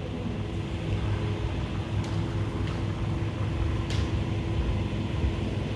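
Steady low hum in a large hall, with three faint sharp clacks of bamboo shinai striking during kendo sparring, about two, three and four seconds in.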